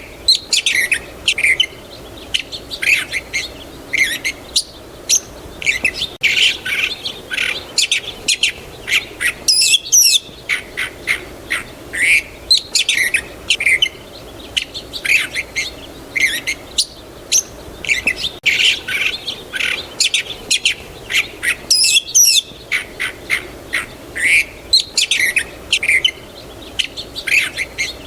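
Songbirds chirping and calling, many short quick notes and trills overlapping, with two brief lulls. A faint steady low background noise runs beneath.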